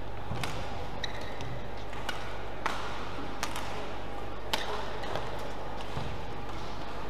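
Badminton rally: sharp hits of racket strings on the shuttlecock, about one a second, the loudest about four and a half seconds in.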